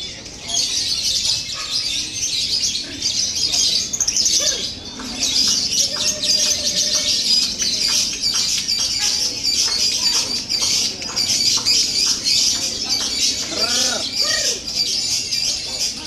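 Lovebird song: a continuous, fast, high-pitched chattering trill that runs on with hardly a break.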